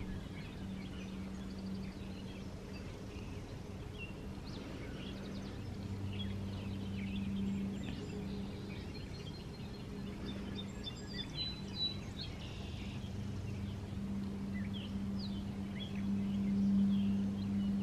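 Outdoor backyard ambience: songbirds chirping and calling in many short notes, over a steady low hum.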